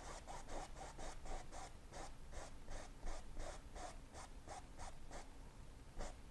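A paintbrush scrubbing back and forth on canvas, blending wet oil paint in quick strokes, about three a second, with a short pause near the end.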